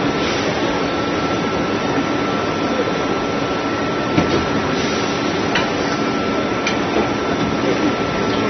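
Injection molding machine running amid the steady din of an exhibition hall: an even mechanical noise with a constant high tone, and a few sharp clicks between about four and seven seconds in.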